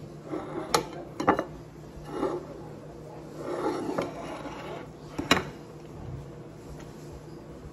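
A person chewing grilled chicken wings, with a few sharp clinks of dishes on a wooden table as a ceramic plate is moved, the loudest about five seconds in.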